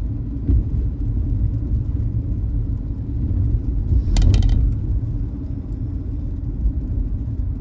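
Steady low road rumble of a car heard from inside the cabin while driving, with a short burst of sharp clicks about four seconds in.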